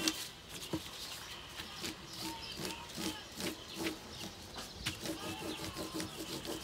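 A wax crayon rubbed back and forth on its side over paper laid on a plastic mesh bag, making a scratchy rubbing at about two strokes a second, as the mesh texture is transferred onto the paper.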